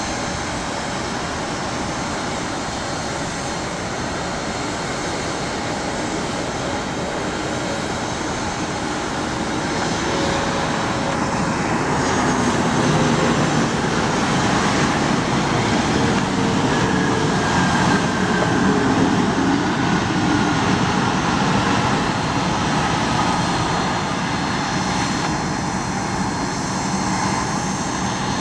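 Twin rear-mounted turbofan engines of a Bombardier Challenger business jet landing: a steady jet rush that grows louder as it touches down and passes, with a whine that glides downward in the second half, then eases slightly near the end.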